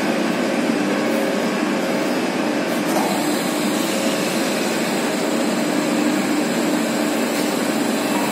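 Electric gear motor driving a chain and sprocket, running steadily as it tilts a bobbin trolley rack, with a continuous machine hum.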